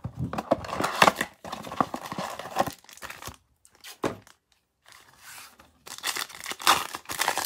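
Plastic wrap on a Panini Prizm football blaster box being torn and crinkled as the box is opened, then a short lull, then a foil card pack torn open near the end.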